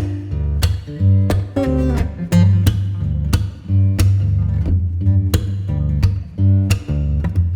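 Background music: a plucked guitar with a bass line and no singing.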